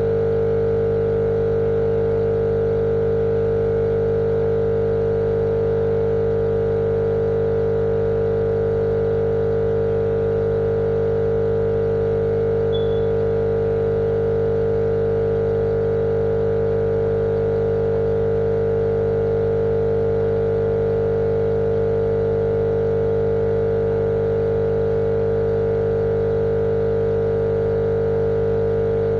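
Steady, unchanging machine drone: a strong mid-pitched hum over a lower hum and a light hiss, played as a sleep noise.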